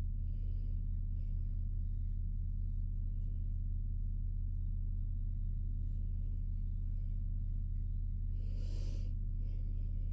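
Domestic cat purring steadily while being stroked on the head, a continuous low rumble, with a brief soft rustle about nine seconds in.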